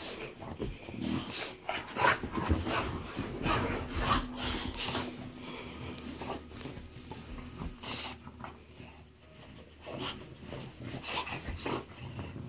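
English bulldog and boxer nosing around a plush dog bed: sniffing and noisy breathing in short irregular strokes, mixed with rustling of the bed's fabric as the bulldog digs and turns in it.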